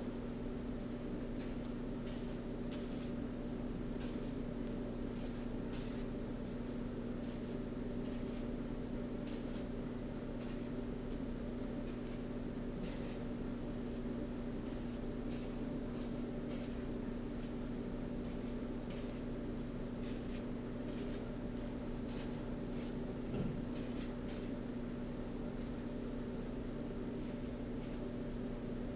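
Paint being dabbed and rubbed onto a large board by hand: short, irregular scratchy strokes. Under them runs a steady low hum.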